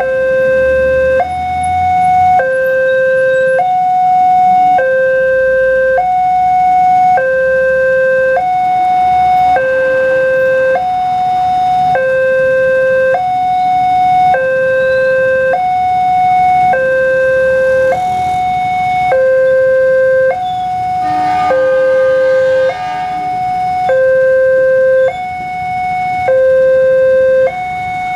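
Indonesian railway level-crossing warning alarm sounding from its loudspeaker on the signal pole: an electronic two-tone signal alternating steadily between a low and a higher tone, each held a little over a second. It signals an approaching train, with the barrier down and the red lights flashing. Another horn-like tone briefly overlaps about 21 seconds in.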